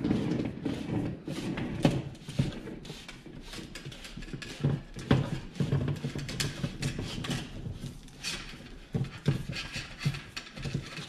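A cable rubbing and scraping as it is pushed by hand through an opening into a wall box, with irregular rustles and small knocks.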